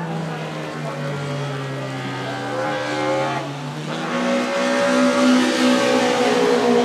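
1987 BMW M3 E30 DTM race car's naturally aspirated four-cylinder engine, running at low revs and sagging slightly, then rising in pitch about four seconds in as it accelerates and holding there. A hiss of tyres throwing spray off the wet track grows louder as the engine note rises.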